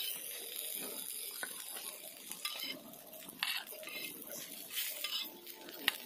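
Fish frying in oil on an iron tawa, a steady sizzle, with a few clinks and scrapes of a metal spatula against the pan.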